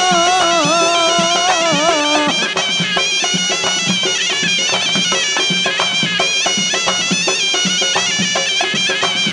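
Tunisian mezoued (bagpipe) playing an instrumental melody over a drum beat. It holds a wavering note for about two seconds, then breaks into a run of quick short notes.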